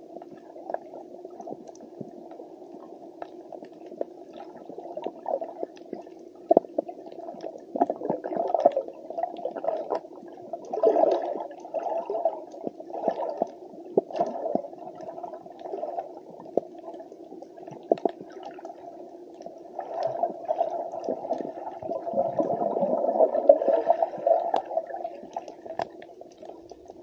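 Underwater ambience heard through a camera housing: a muffled, rushing wash of moving water with scattered faint clicks and crackles. It swells louder about ten seconds in and again for several seconds near the end.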